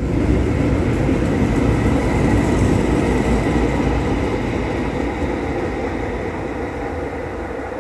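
Tyne and Wear Metrocar train pulling away from the platform: steady rail running noise with a faint high whine, slowly fading as the train draws off down the line.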